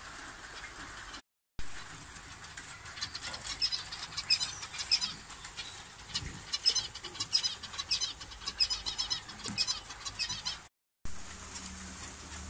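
Zebra finches chirping: a busy, rapid run of short high calls from about three seconds in until about ten seconds. The sound cuts out briefly twice, and after the second break a steady low hum takes over.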